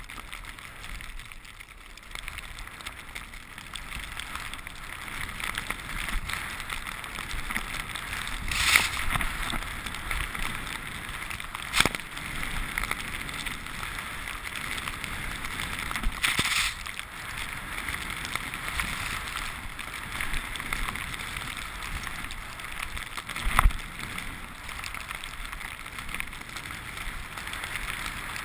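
Snowboard sliding through deep powder with wind rushing over the microphone, a steady hiss. It swells louder twice, about a third of the way in and again near the middle, and two sharp knocks come later.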